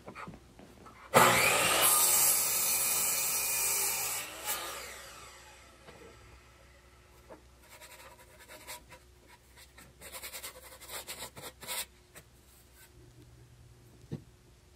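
Harbor Freight miter saw starting about a second in and cutting through a wooden board for about three seconds, then the blade winding down with a falling pitch. Afterwards, light knocks and rubbing as the cut board is handled.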